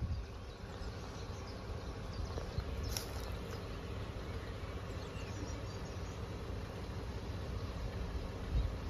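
Outdoor background noise: a low, uneven rumble with a faint steady hum, and one sharp click about three seconds in.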